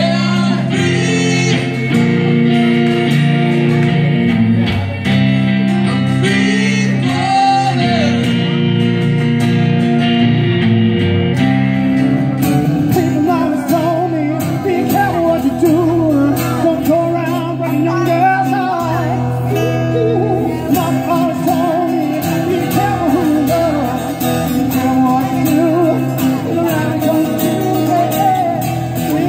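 Live acoustic-guitar band music with male vocals. About twelve seconds in it cuts to a different song: two acoustic guitars strummed under a sung melody.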